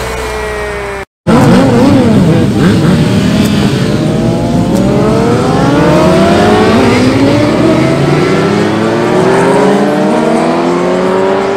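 A group of motorcycles, sport bikes among them, riding past with their engines revving, loud, the pitch wavering at first and then climbing steadily over the last several seconds as they accelerate. In the first second, before a sudden cut, a vehicle drives past close by with a falling engine tone.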